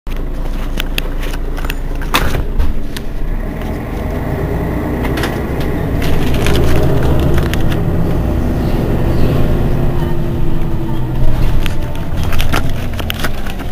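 Mercedes-Benz Citaro city bus's rear-mounted engine idling while the bus stands still. The engine note swells and eases back between about six and eleven seconds in, with a few sharp knocks over it.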